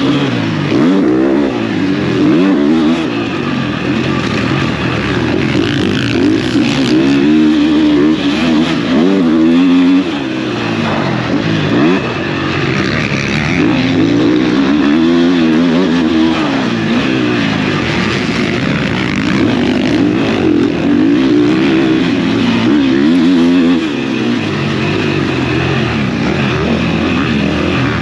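Motocross bike engine being ridden hard, its pitch repeatedly climbing and dropping as the rider opens and closes the throttle and shifts.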